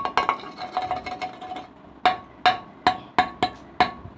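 Steel bowl being struck by a toddler, ringing: a loud clang at the start, then clinking for a second and a half. From about halfway, a run of about six sharp taps comes, roughly two and a half a second, each ringing briefly.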